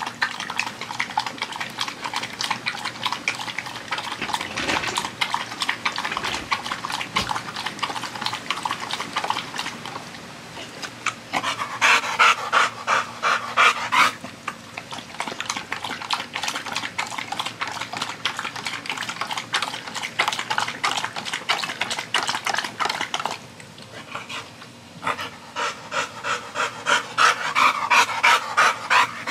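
American bully lapping water from a plastic bowl, a fast run of wet laps. About twelve seconds in and again near the end, he breaks off into quick, heavy panting, still out of breath from fetch.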